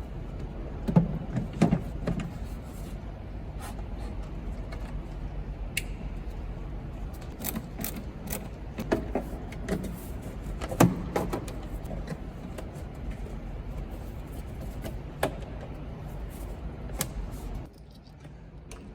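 Scattered light clicks and knocks of parts and tools being handled during work on a car's engine bay, over a steady low hum.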